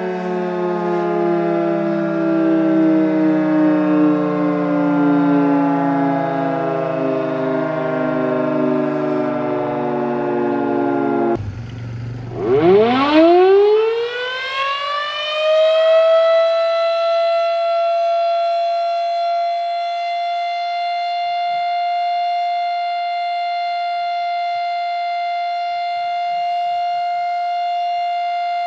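Outdoor warning siren sounding with a slowly falling pitch, then cut off abruptly about a third of the way through. A siren then starts up, its pitch rising quickly from low and levelling into a steady high tone that it holds.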